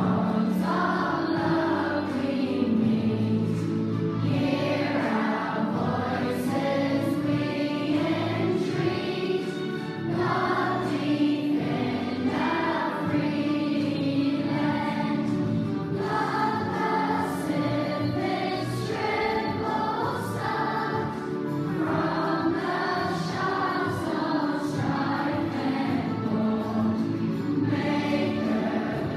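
A large group of schoolchildren singing a song together, their voices sustained without a break.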